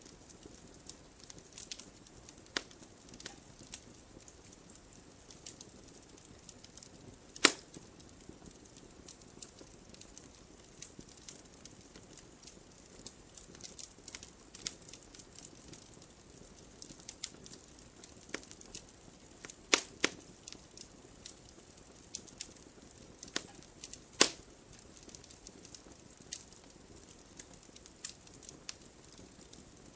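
Wood fire crackling in a fireplace: a constant scatter of small snaps over a soft hiss, with a few much louder pops, one about a quarter of the way in, a close pair about two-thirds in, and one more soon after.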